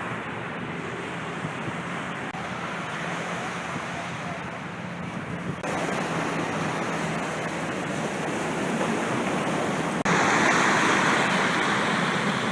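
Ocean surf breaking on a beach, with wind on the microphone; the sound jumps louder abruptly about halfway through and again near the end.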